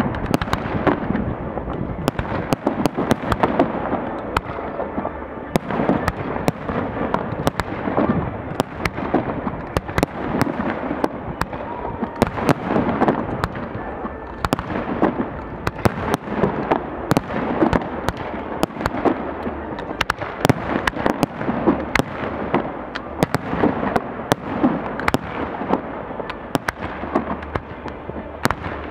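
Fireworks display going at full tilt: a dense, continuous barrage of bangs and sharp crackling as many shells burst close together, over a steady rumble.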